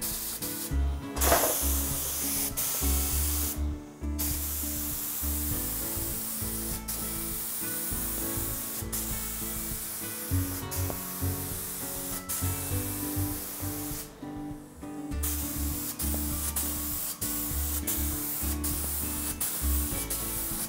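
Suction-feed air spray gun hissing steadily as it sprays a second top coat of two-part urethane onto a wood panel. The hiss stops briefly about four seconds in and for about a second near fourteen seconds, where the trigger is let go between passes.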